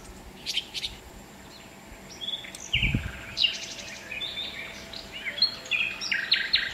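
Small birds chirping repeatedly, short high calls scattered throughout, with one dull thump about three seconds in.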